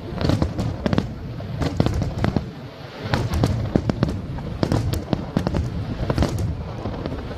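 Aerial fireworks bursting in a rapid, irregular barrage of bangs and crackles over a continuous low rumble.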